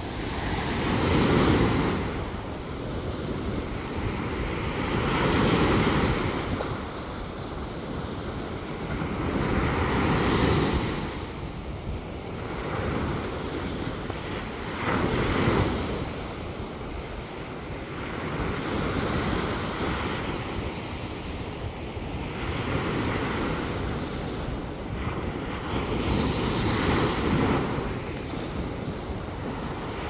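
Surf breaking and washing up a sandy shore, each wave swelling and fading roughly every four seconds, with wind rumbling on the microphone.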